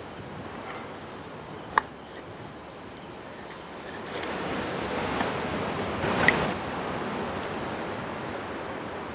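Mushroom soup being ladled from an iron kadai into a small bowl: a sharp knock of the ladle on the pan about two seconds in, then liquid scooping and pouring that swells from about four seconds, with another sharp knock in the middle of it.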